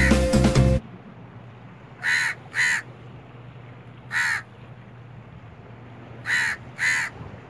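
A crow cawing five times: a pair of short caws about two seconds in, a single caw a couple of seconds later, and another pair near the end.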